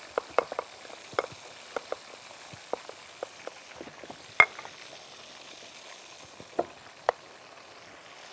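Oil sizzling steadily in a frying pan, with scattered sharp pops and crackles, from breaded potato-and-chicken kofta frying. The loudest pop comes about four seconds in.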